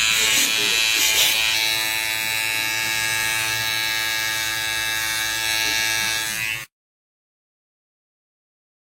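A loud, steady buzzing tone with many overtones, which cuts off abruptly about two-thirds of the way through, leaving dead silence.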